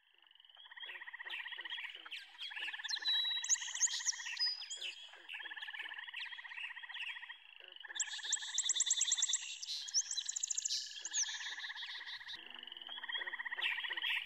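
Wetland frog chorus: frogs trilling in repeated bouts of about a second or so, with high, fast trilling calls above them, loudest about eight to eleven seconds in.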